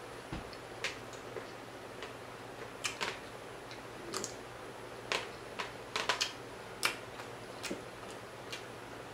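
Close-up eating sounds as croaker fish is picked from the bone by hand and eaten: about a dozen short, sharp, irregular clicks and smacks, with a quick cluster about six seconds in.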